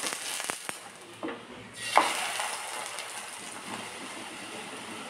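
Ghee sizzling around a stuffed lauki paratha on a hot tawa, with a few light clicks from a metal spoon spreading the ghee. The sizzle starts sharply about two seconds in and then runs on steadily.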